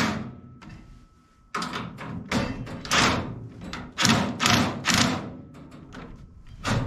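Wrench tightening a jam nut on the steel hitch mount of a Mow & Go truck ramp carrier: a string of sharp, irregular metal knocks and clanks, with a short pause about a second in.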